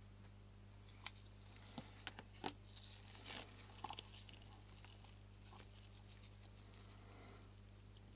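Near silence over a low steady hum, broken between about one and four seconds in by a few faint small clicks and a brief scrape of small tools and tiny metal parts being handled during lens shutter assembly.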